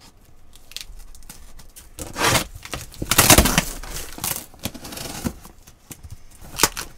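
Packing tape being ripped off a cardboard shipping box and the flaps pulled open: several tearing rips, the loudest about three seconds in, with rustling and scraping of cardboard between them.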